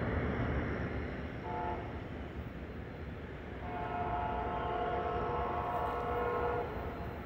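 Horn of an approaching Trinity Railway Express commuter train sounding a chord of several tones: a short blast about a second and a half in, then a long blast of about three seconds, over a steady low rumble.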